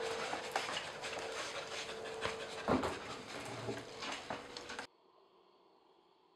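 A dog panting among footsteps and light knocks as a wooden cabinet is carried in and lowered, with one sharp knock about two and a half seconds in. The sound drops abruptly to near silence about five seconds in.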